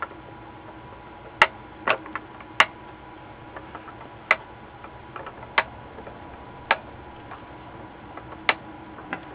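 Diagonal cutters snipping off the protruding leads of newly soldered electrolytic capacitors on a power supply circuit board: a series of sharp, separate clicks at uneven intervals, about seven in all, as the excess legs are trimmed flush to the solder.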